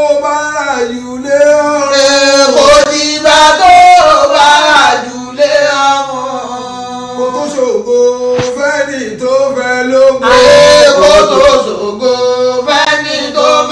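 A man's voice chanting a prayer in song, a melodic line with long held notes that bend up and down.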